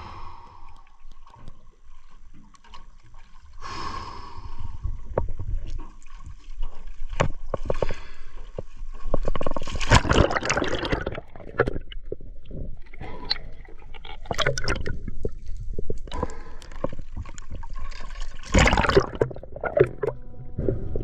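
Water sloshing and gurgling with irregular knocks, and two louder rushes of splashing, about halfway through and near the end.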